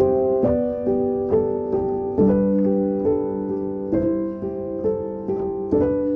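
Background music: a piano playing a gentle, even pattern of sustained notes and chords, a new note about every half second.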